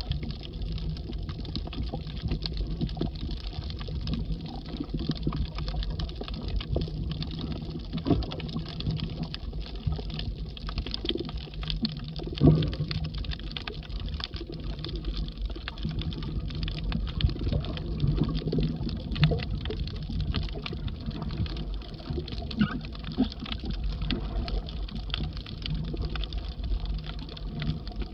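Underwater reef ambience picked up by a submerged camera: a dense crackle of tiny clicks over a low rumble of moving water, with one louder knock near the middle.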